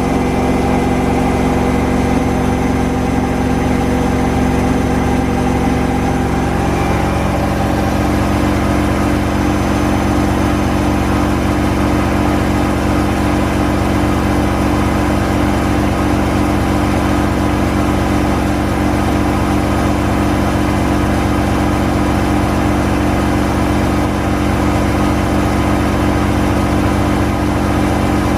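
Gorenje WPAM74SA1T washing machine running with a steady motor hum; about seven seconds in, the hum's pitch steps up as the drum motor changes speed.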